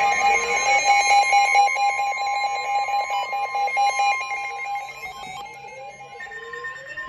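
NOAA Weather Radio warning alarm, a steady tone just above 1 kHz, with a second tone gliding slowly up and down beneath it. It grows quieter about five seconds in.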